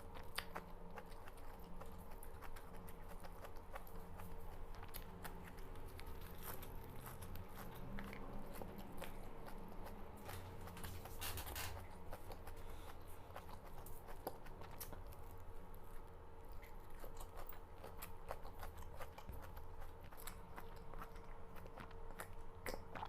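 A person chewing and biting raw red amaranth (lal chaulai) leaves: soft, irregular crunching and many small mouth clicks. A faint steady hum runs underneath.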